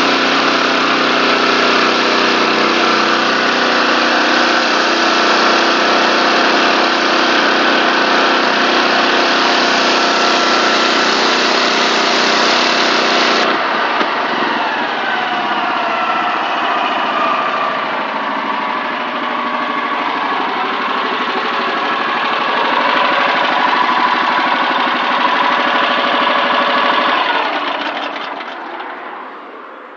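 Honda petrol engine of a Kranzle B 270 T pressure washer running, with the hiss of the high-pressure water jet hitting paving. About halfway through the spray cuts off suddenly and the engine note changes. Near the end the engine winds down and stops.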